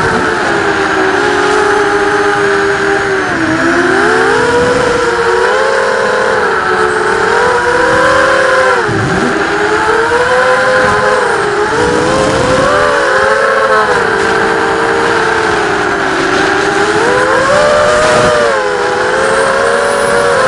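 Brushless motors and propellers of a 250-size FPV racing quadcopter, recorded on board in flight, whining with several close pitches that rise and fall together with the throttle and drop sharply for a moment a few times as it is chopped.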